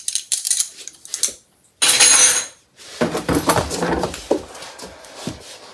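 Metal drinking straws clinking together as they are handled and set down, with one louder rattle of about a second near two seconds in, followed by rummaging among small items in a kitchen drawer.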